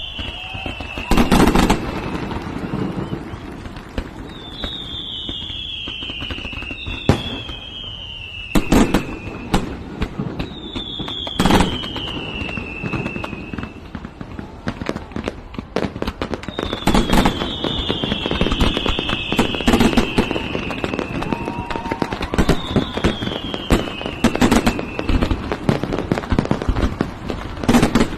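Fireworks display: shells bursting with sharp bangs several seconds apart, dense crackling in between, and repeated whistles that fall in pitch.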